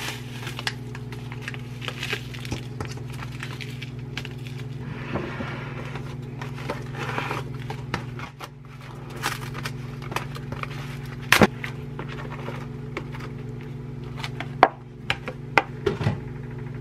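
Kitchen handling sounds: a plastic packet of seaweed salad mix rustling as it is tipped into a glass bowl of water, then a plastic tray of cockles being unpacked and a metal mesh sieve handled, with scattered sharp clicks and knocks over a steady low hum. The loudest knock comes about eleven seconds in, and a cluster follows near the end.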